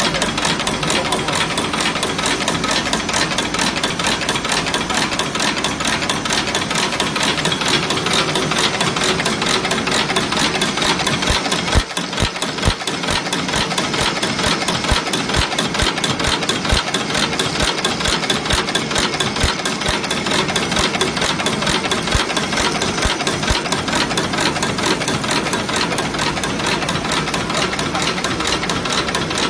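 JL-Z200 automatic non-woven folding and cutting machine running: a steady, fast, even mechanical clatter, with a few low thumps about halfway through.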